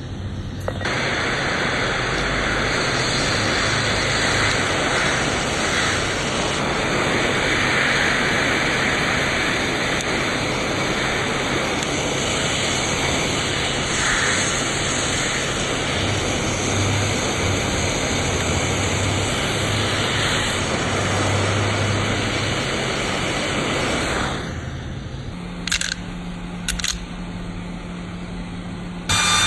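Hot-air rework station blowing a steady rushing hiss, as used to heat a phone chip for reballing; it cuts off about 24 seconds in. Two short clicks follow.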